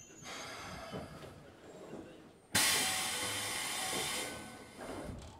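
Inside a Keikyu 1500 series electric train: a low rumble with a few faint clicks, then about two and a half seconds in a sudden loud hiss of compressed air from the train's pneumatic system, lasting under two seconds before fading away.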